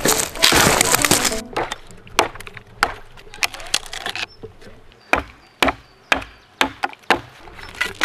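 A dead wooden branch being broken off a tree stump by foot and hand: a loud, dense cracking and splintering for about the first second and a half, then a series of separate sharp snaps and knocks at irregular intervals.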